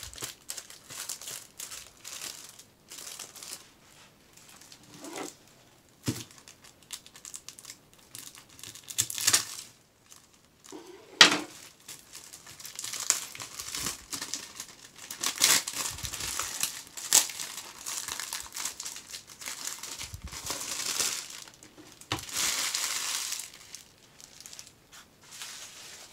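Clear plastic bag crinkling and rustling in irregular bursts as it is handled and a tablet in its case is pulled out of it, with one sharp knock near the middle.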